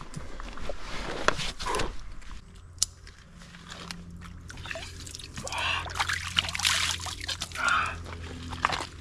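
Hands dipping and splashing in a shallow creek, water sloshing and trickling, loudest from about six to eight seconds in. A few footsteps come first.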